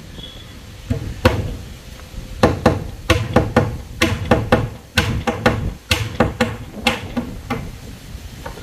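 Claw hammer striking the wooden formwork boards around a concrete pillar: a long run of quick, irregular blows with short pauses between groups.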